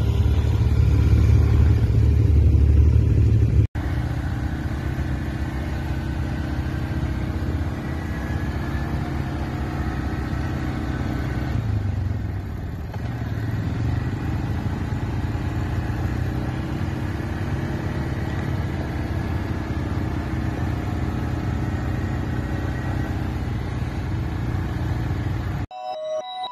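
Dirt bike engine running steadily, with a sudden brief break about four seconds in; the engine sound cuts off abruptly near the end.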